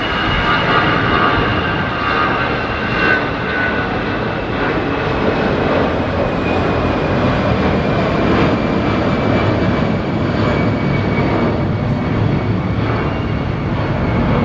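Jet engines of an Airbus A320-family airliner climbing away after takeoff: a steady loud roar with a high whine that slowly falls in pitch as the plane moves off.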